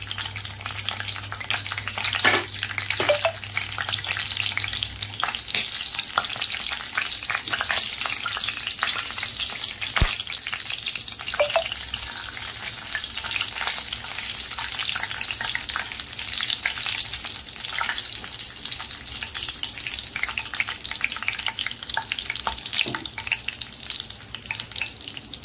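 Whole spices (cardamom, cinnamon, bay leaves, cloves, star anise) sizzling in hot oil in a nonstick kadhai, a steady sizzle full of fine crackles. There is one sharper click about ten seconds in.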